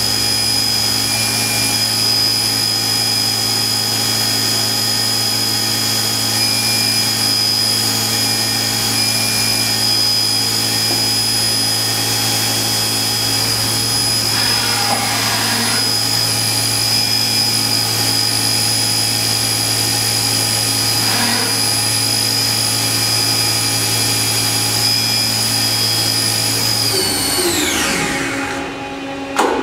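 Fadal VMC 15XT vertical machining center running a program: a steady high-pitched spindle whine over motor hum while the table traverses. Near the end, the whine falls steeply in pitch and dies away as the spindle spins down, followed by a single click.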